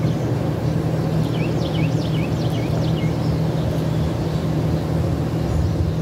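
Steady low machine hum with a constant drone and a background rush, over which a bird gives a run of quick, high, downward-sweeping chirps from about one to three seconds in.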